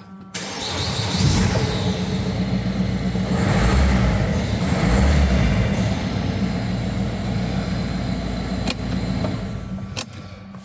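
Peugeot 1.6 HDi diesel engine starting up and running, now that its crank-no-start fault has been repaired. It catches just after the start, gets louder briefly around four and five seconds in, settles to a steady run, and drops away near the end.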